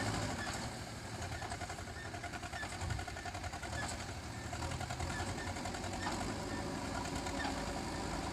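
JCB 3DX backhoe loader's diesel engine running steadily while the machine works, easing slightly about a second in, with a short knock about three seconds in.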